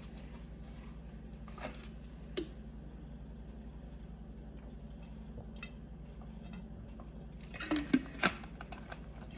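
Kitchen clatter over a steady low hum: a couple of light knocks, then a brief burst of clinking and knocking about eight seconds in, the loudest thing heard.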